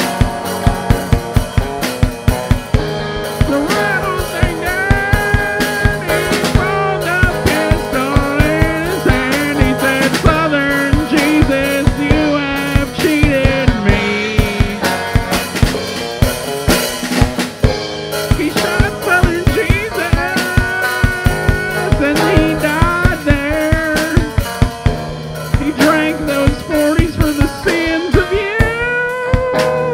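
Instrumental break of a band song: a drum kit keeps a steady beat under a lead melody line that bends up and down in pitch.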